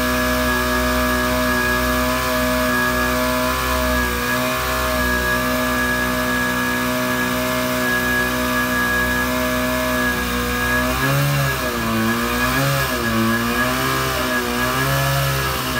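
Portable fire pump's engine on a small fire truck running at a steady speed, then its speed rising and falling several times in the last few seconds.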